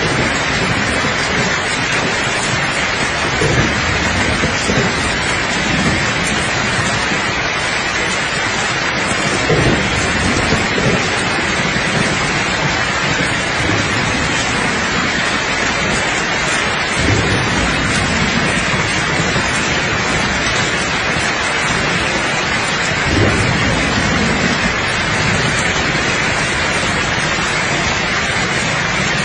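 Steady rain falling, with faint low rolls of thunder four times: a few seconds in, around ten seconds, about halfway, and again later on.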